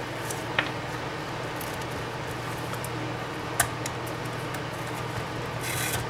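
Two short, sharp plastic clicks about three seconds apart as the hand grip is worked loose from a Sony CCD-TRV128 camcorder's body, with a brief rustle of handling near the end, over a steady low hum.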